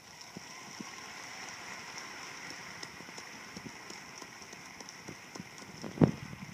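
Audience applause, an even crackling clatter of many hands, heard through a laptop's speakers. A single sharp knock near the end.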